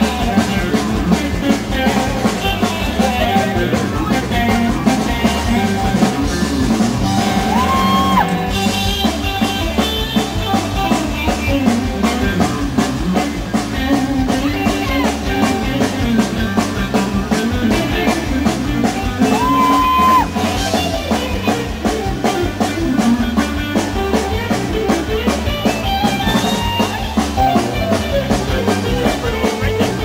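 Live rock band playing amplified during a sound check: drum kit keeping a steady beat under electric guitar.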